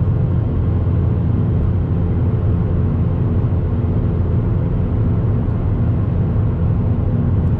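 Steady low rumble of a car, unchanged throughout, with a faint steady hum above it.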